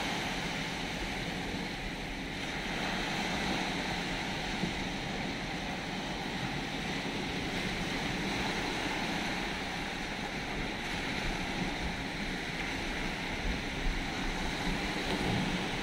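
Sea waves washing steadily onto a rocky shore, with wind noise on the microphone.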